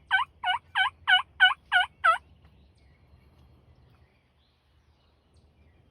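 Wild turkey yelping: a loud run of about seven evenly spaced yelps, roughly three a second, stopping a little over two seconds in.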